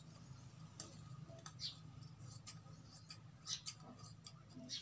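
Large metal tailor's scissors cutting blouse fabric: about six faint snips, unevenly spaced.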